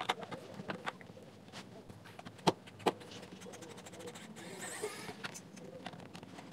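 Small clicks and taps of tools on a plastic speaker housing, the loudest two sharp knocks about two and a half and three seconds in. Near the end, a small cordless electric screwdriver whirs briefly as it backs out a screw.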